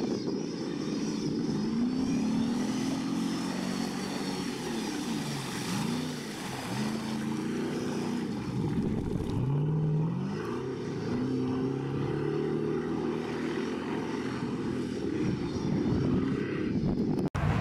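Off-road race trucks' engines revving hard, the pitch climbing and dropping again and again as the throttle is worked through the mud.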